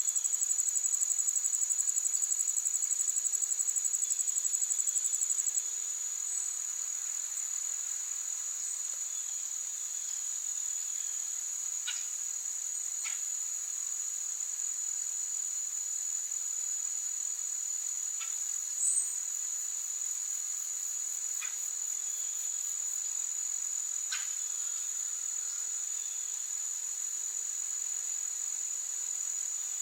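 Steady high-pitched insect chorus in a forest. A louder, rapidly pulsing insect trill runs over it for the first five seconds or so, then stops abruptly; a few faint short chirps come later.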